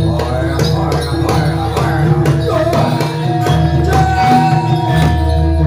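Javanese gamelan music for a jathilan horse dance: regular drum strokes over ringing pitched metal percussion and sustained low tones.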